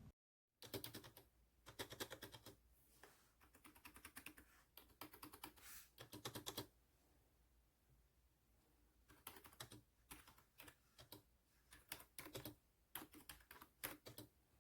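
Faint typing on a Logitech Wave Keys wireless ergonomic keyboard: runs of quick key clicks, pausing for a couple of seconds midway before starting again.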